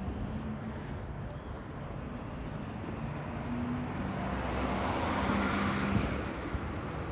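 A motor vehicle drives past on the street over a steady traffic rumble. Its noise swells to a peak about five to six seconds in, then fades.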